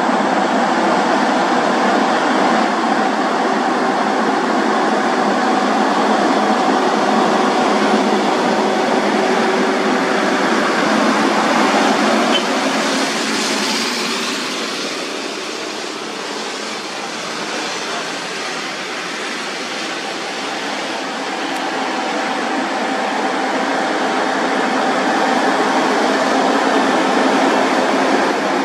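Heavy Scania tractor-trailer trucks hauling heavy equipment on lowboy trailers pass one after another, their diesel engines running steadily with tyre noise. The sound swells with a hiss as one passes close about halfway through, eases off for several seconds, then builds again as the next truck approaches.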